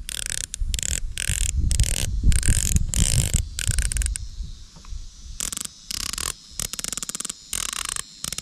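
Rifle scope turret (CVLIFE 3-9x40) being turned by hand, giving a series of loud, positive detent clicks: clicks about every half second at first, then quick clusters of rapid clicks in the second half. A low rumble sits under the first half.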